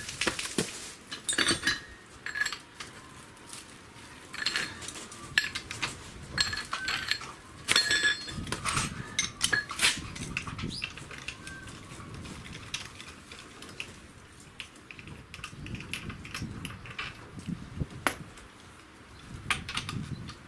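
Metal objects clinking and clanking at irregular intervals, with some dull knocks in between, as hard metal parts and tools are handled.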